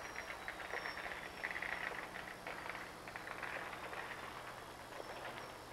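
Night chorus of chirping animals: a dense, pulsing high trill that swells and fades, over a low steady hum.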